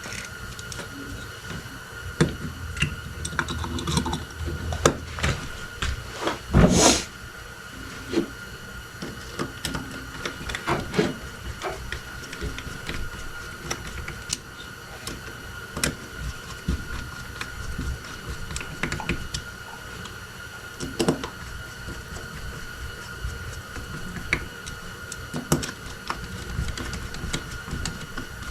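Small carburetor parts and tools being handled on a workbench: scattered clicks, taps and clinks, with one louder half-second rush of noise about seven seconds in, over a faint steady high tone.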